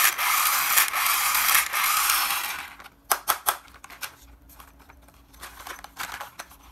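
Hands handling a plastic toy racing car: a loud scraping, rubbing noise for about three seconds that cuts off suddenly, followed by scattered light plastic clicks and taps as the toy is turned over.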